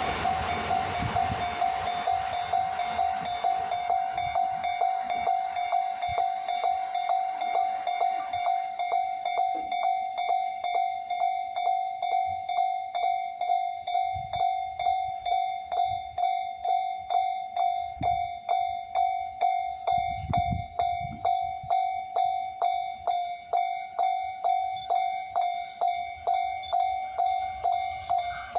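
Japanese level-crossing warning bell ringing over and over in a steady quick rhythm, one clear tone struck repeatedly. The noise of a passing train fades out in the first couple of seconds.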